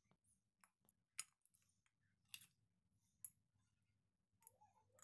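Near silence: room tone with a few faint, short clicks spread through it.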